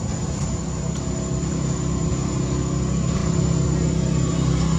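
A motor engine droning steadily in a low hum, slowly growing louder.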